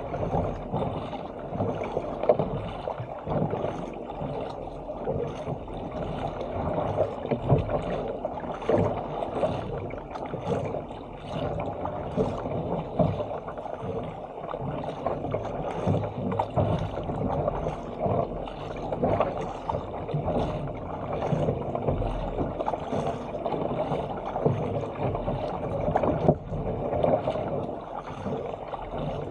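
Sea water rushing and splashing around a fishing ski's hull and double-bladed paddle as it is paddled at speed in open-sea chop. It is a steady wash with uneven surges as strokes and waves hit.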